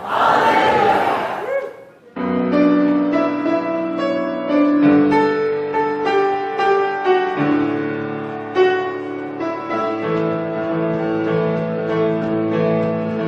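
A congregation answering together in unison, then from about two seconds in, instrumental keyboard music playing sustained chords.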